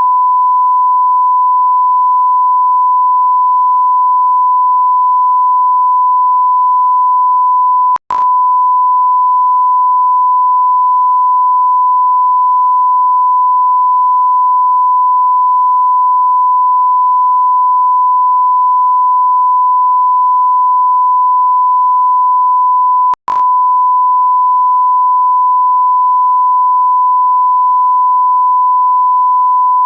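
Continuous electronic sine tone at a steady pitch of about 1 kHz, like a test tone or censor bleep. It cuts out for an instant twice, about eight seconds in and again about twenty-three seconds in, with a click at each break.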